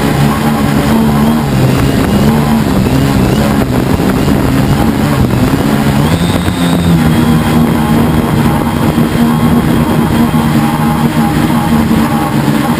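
Helimax Form 500 quadcopter's motors and propellers running in flight, heard close up from the camera on the airframe: a loud, steady buzz whose pitch wavers up and down as the motor speeds change, with a thin high whine joining about six seconds in.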